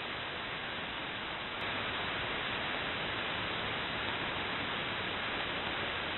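Steady shortwave radio static from an SDR receiver tuned in upper sideband on the 4724 kHz HF channel: an even hiss with no voice, rising slightly in level about a second and a half in.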